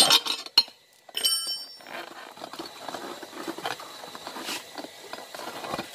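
Hand work on a tubeless motorcycle tyre with metal tyre levers: a clatter at the start, then about a second in a metallic clink that rings briefly, followed by scraping and rubbing of tyre rubber against the rim as the bead is worked off.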